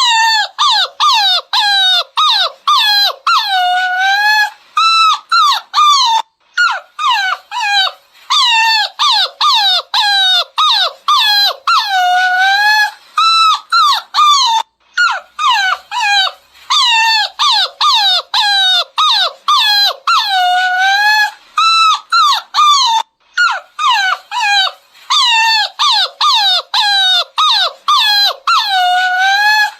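Beagle puppy whining and yelping: runs of quick, high-pitched cries, many of them falling in pitch, broken by short pauses.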